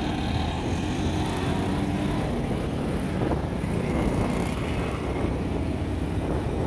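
Steady low rumble of a car's engine and tyres while driving, heard from inside the car.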